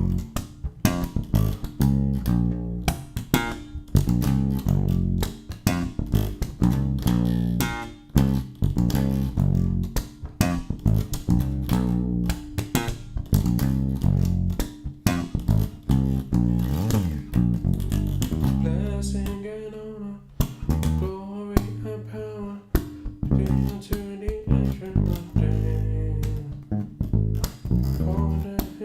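ESP LTD B-155DX electric bass playing the interlude's bass line: a continuous run of plucked low notes in a steady rhythm.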